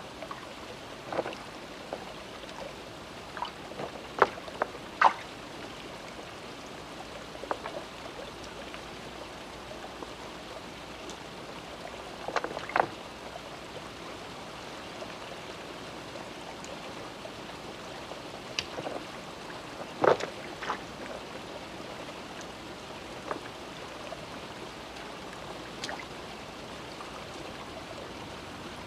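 River water running over a shallow, stony bed, with stones knocking together sharply now and then as the rocks of the bed are walked on and turned over in the search for jade.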